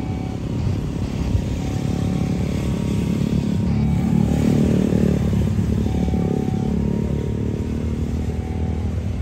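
Road traffic with motorcycle engines running and passing, one louder around the middle.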